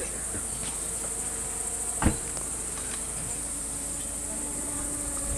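Crickets chirping in a steady high-pitched hum, with a single sharp knock about two seconds in.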